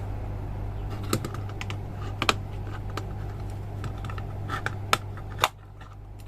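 Irregular clicks and taps of an air pressure switch housing being handled and worked open by hand. A steady low hum runs underneath and stops with a sharp click near the end.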